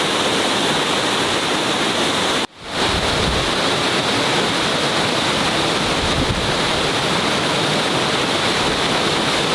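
Waterfall rushing water, a steady loud noise with no distinct events, broken by a brief sudden dropout about two and a half seconds in before it resumes.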